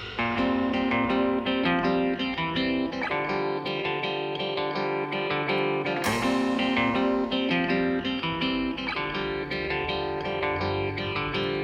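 Background music led by a plucked guitar, playing a quiet passage of picked notes.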